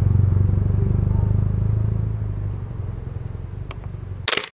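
Low, steady engine rumble of a motor vehicle that fades away from about halfway through. A short, loud crackle comes near the end.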